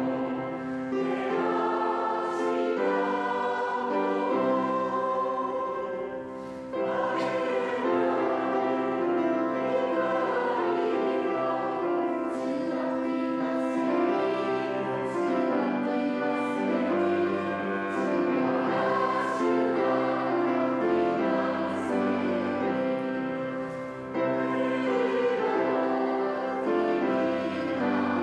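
Choir singing a Christmas hymn in long sustained phrases, with short breaks between phrases about six and a half seconds in and again near the end.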